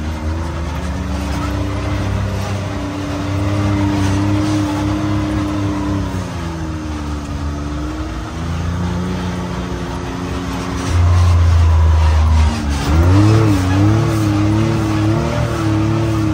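Can-Am Maverick X3 side-by-side's turbocharged three-cylinder engine running on the move under changing throttle. Its note dips about six seconds in, steadies, then rises and wavers over the last few seconds as the throttle is worked.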